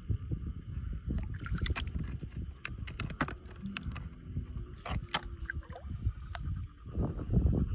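Shallow lake water sloshing and splashing, with scattered sharp clicks and knocks, as hands work through the water and mud gathering snails.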